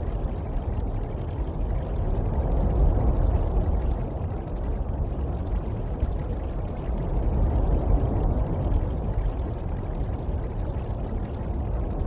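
Continuous low rushing sound like running water, a dense hiss with no distinct tones. It swells and eases every few seconds.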